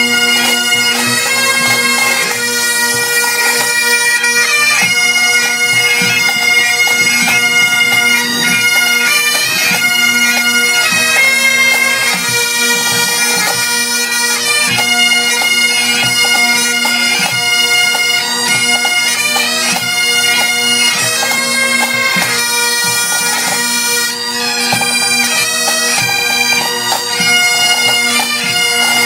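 Instrumental music: a melody played over a steady drone that holds throughout.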